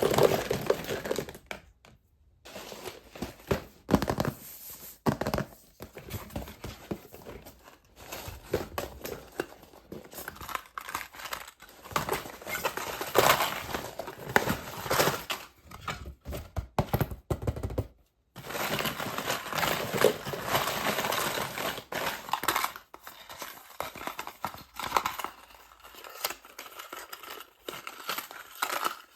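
Plastic and foil wrappers of surprise eggs and candy packs crinkling and tearing as they are unwrapped by hand, in irregular rustles and clicks. There are brief pauses about two seconds in and again a little past the middle.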